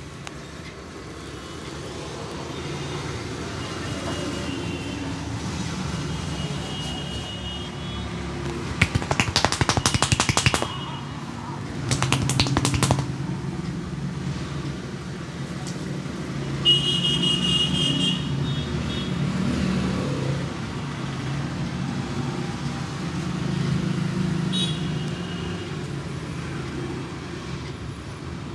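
Street traffic running steadily in the background, with a short horn-like tone about two-thirds of the way through. Twice near the middle come fast runs of sharp taps, each lasting a second or two.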